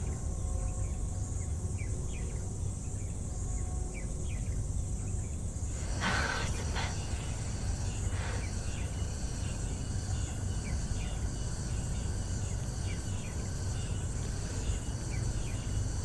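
Outdoor park ambience: a steady high insect buzz like crickets, with many faint short chirps and a low rumble underneath. Two brief soft rustles about six and eight seconds in.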